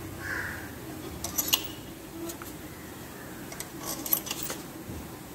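Light metallic clinks as steel head bolts knock together in a hand and are dropped into the bolt holes of a small engine's aluminium cylinder head. There are two short runs of clinks, about a second in and again around four seconds in.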